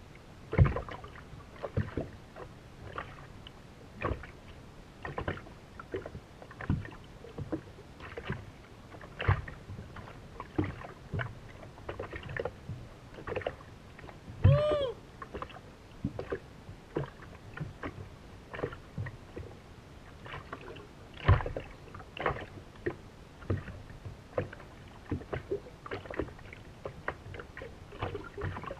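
Small waves slapping against the hull of a racing powerboat lying still on choppy water: irregular knocks every half second to second. About halfway through there is one short squeak that rises and falls in pitch.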